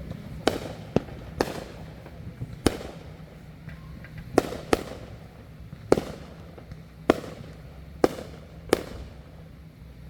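Backyard consumer fireworks going off: about ten sharp bangs at irregular intervals, each with a short echoing tail.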